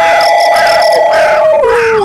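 Wolves howling in long held notes, several voices overlapping, one sliding down in pitch near the end. Crickets chirp in a steady rhythm behind.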